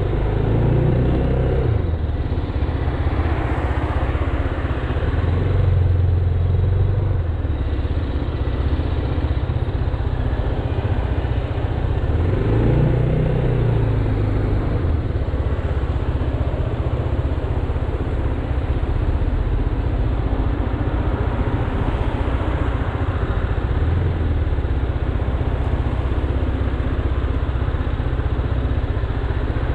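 Motorcycle and scooter engines idling in stop-and-go traffic. About a second in and again around halfway, an engine revs up and back down, and another rise comes near the end.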